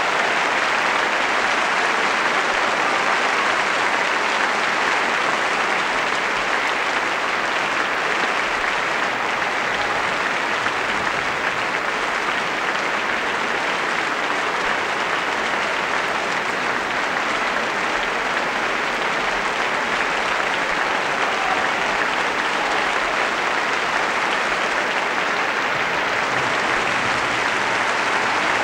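Large concert audience applauding, a dense, steady clapping that neither builds nor fades.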